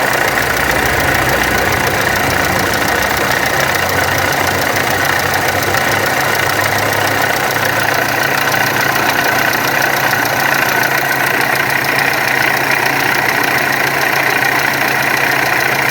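Volkswagen Amarok turbo diesel engine idling steadily with the mechanical noise it was brought in for.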